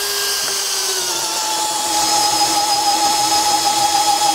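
Makita DHP481 brushless hammer drill in drill mode, running steadily in first gear as it bores a large auger bit into hardwood. The motor's whine drops in pitch about a second in as the bit bites and takes the load.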